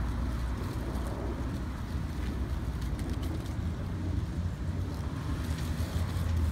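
Steady low rumble of distant road traffic, with no clear single event standing out.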